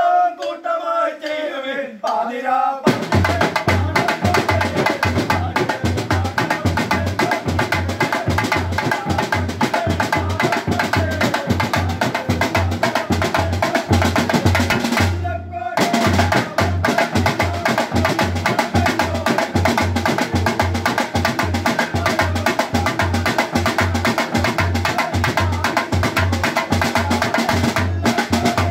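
Group voices chant together for a moment, then a carol-round drum band of large bass drums and smaller side drums played with sticks starts a fast, steady beat. The drumming stops briefly about halfway, then picks up again.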